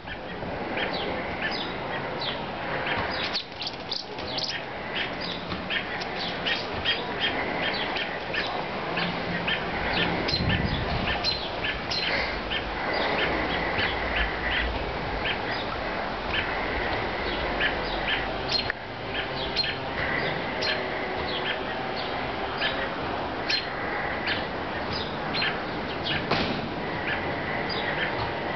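Songbirds chirping repeatedly, many short sharp high calls coming several times a second throughout, with a held high note now and then.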